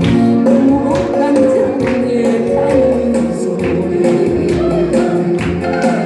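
Music: a song with a singing voice over an instrumental backing with a steady percussive beat.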